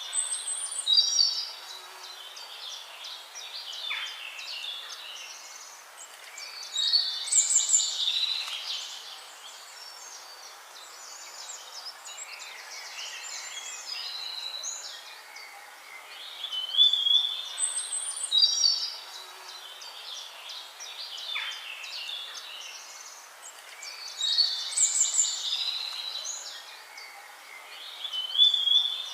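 Small birds singing and chirping, high-pitched, in louder bursts of song every eight seconds or so with softer chirps in between.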